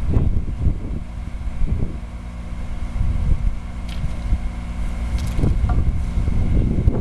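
Wind buffeting the microphone in gusts, with a steady low engine hum from site machinery beneath it.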